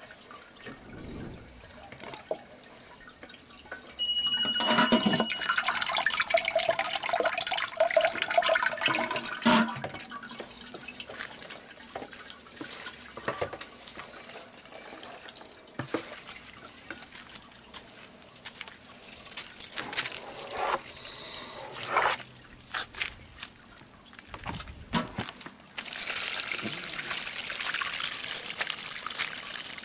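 Grape juice trickling and dripping from the spout of a wooden basket wine press into a bowl. Louder noisy stretches come about four seconds in and again near the end, the latter as crushed grapes are tipped from a bucket into the press.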